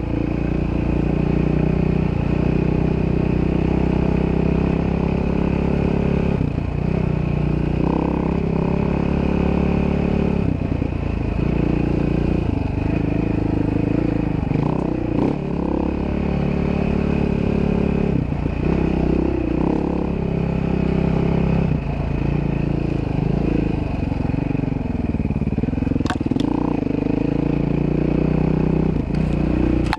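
Dirt bike engine running while riding a snowy trail, its pitch dipping and picking up again many times as the throttle is eased off and reopened. A couple of sharp knocks come near the end.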